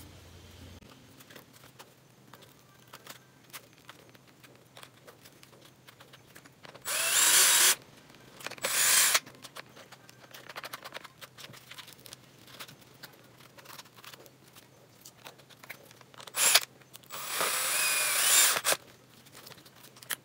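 Cordless electric screwdriver driving screws, in four short runs: two close together near the middle, then a brief one and a longer one of about a second and a half near the end. Light clicks of plastic parts being handled in between.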